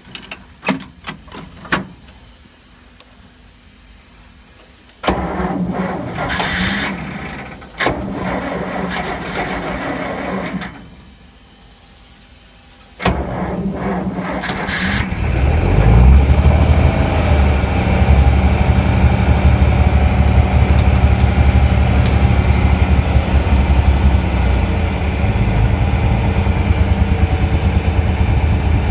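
A few sharp clicks, then an engine being cranked in two tries before it catches and settles into a steady, loud run with an even pulse.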